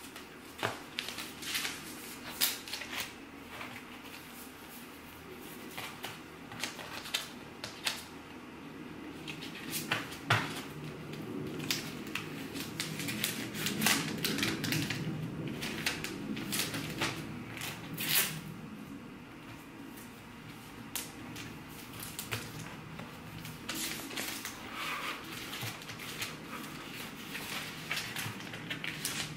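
Clear plastic sticker sleeves and paper card stock being handled and sorted by hand: rustling and crinkling with sharp clicks and taps at irregular intervals.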